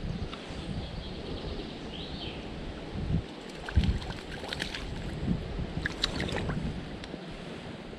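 River water sloshing and lapping around a wading angler, with a few low thumps. A hooked brown trout splashes at the surface about six seconds in as it is drawn close.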